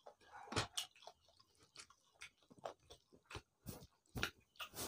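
People chewing mouthfuls of rice and chicken curry with their mouths open: irregular short smacks and clicks, a few a second.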